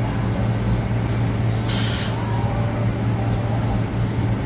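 Steady low mechanical hum, with a short hiss of air about two seconds in.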